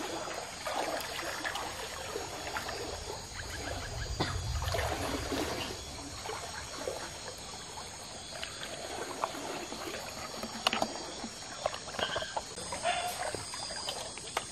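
Shallow river water trickling and sloshing, with scattered small splashes and knocks.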